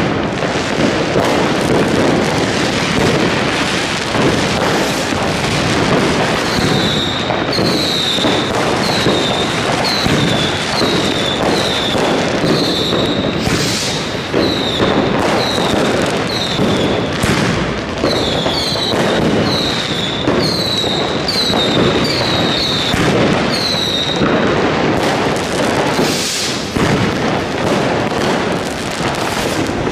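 New Year's fireworks going off without pause: a dense din of bangs and crackle. From about a quarter of the way in to about four-fifths through, a run of short whistles falling in pitch sounds one or two a second over the top.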